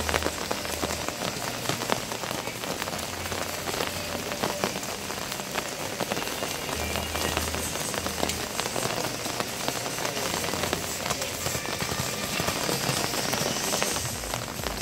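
Steady rain falling on a waterlogged outdoor arena, with many sharp drop hits close by.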